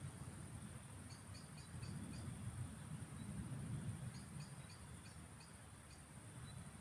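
Faint field soundscape: a steady high insect buzz, with two runs of short high chirps from a small bird, about a second in and again around four seconds. Under it, a low rumble swells and fades.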